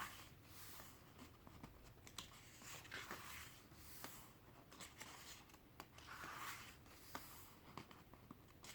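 Faint handling of a photobook: paper pages turned by hand, with soft swishes twice and scattered light taps.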